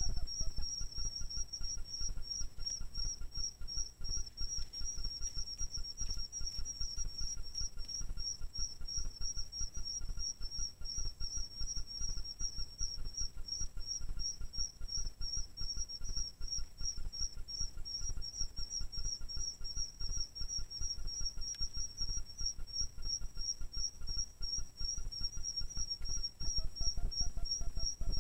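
Night insects calling: a steady, fast-pulsing high-pitched trill, over a faint low rumble.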